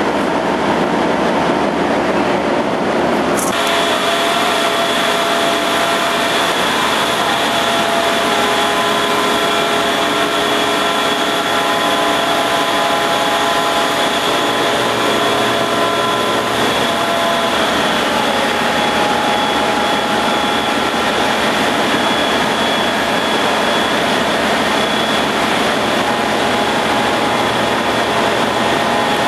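Container ship's engine-room machinery running: a loud, steady din with several fixed whining tones over a dense hiss. The mix of tones shifts abruptly about three and a half seconds in.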